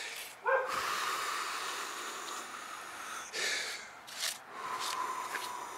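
A man breathing heavily: one long, hissing breath of nearly three seconds, a couple of short sharp breaths, then another long breath out near the end.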